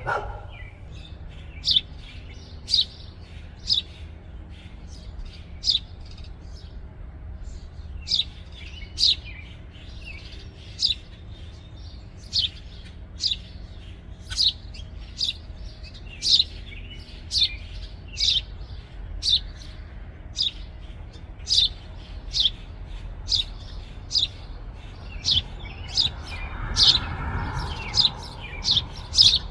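House sparrow fledglings calling from the nest: a long series of short, sharp, high chirps, about one a second and quickening toward the end, over a steady low background rumble.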